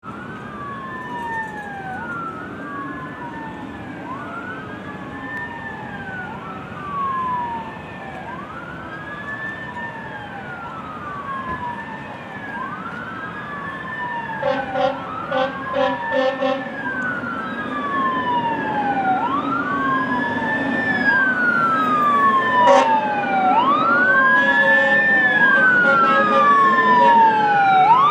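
Fire engine sirens wailing as two fire apparatus approach, two overlapping sirens each sweeping quickly up and sliding down about every two seconds, growing louder toward the end. About halfway through comes a quick series of about five short horn blasts, and another single blast a little later.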